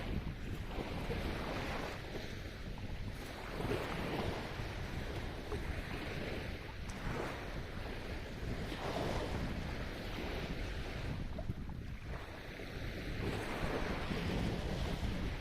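Sea waves breaking and washing up the shore in strong wind, surging in broad swells every few seconds. Gusts buffet the microphone as a constant low rumble.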